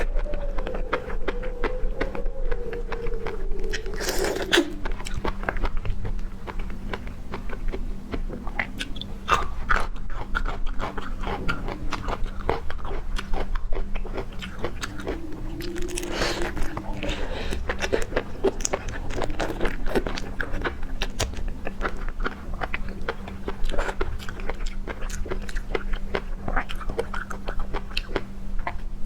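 Close-miked chewing of seafood: a dense, continuous run of crunchy bites and crackles.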